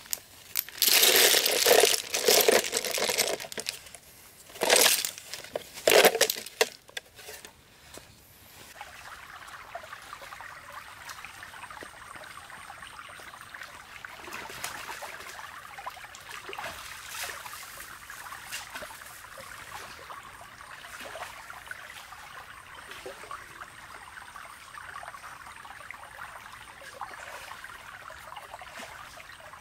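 A black plastic bag being crinkled and handled in loud bursts for about the first eight seconds. Then a stream's steady trickle of running water takes over.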